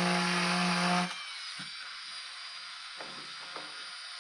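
A handheld power grinding tool running steadily as it grinds away the blower's plastic housing, then shutting off about a second in. A few faint low sounds follow.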